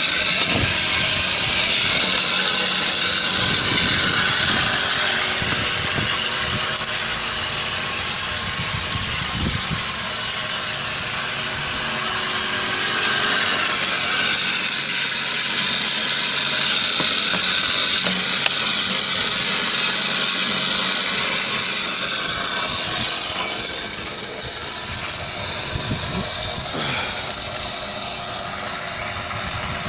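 Battery-powered knapsack sprayer pump running steadily with a continuous hiss as it builds pressure in a sealed plastic water bottle.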